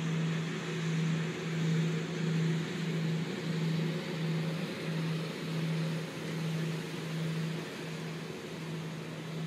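Boat engine running steadily: a low hum that swells and dips about one and a half times a second, over an even rushing noise.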